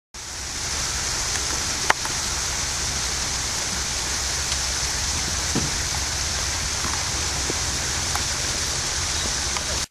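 Steady open-air hiss with a low hum beneath, the background noise of the green picked up by the recording, with one sharp click about two seconds in and a few fainter ticks.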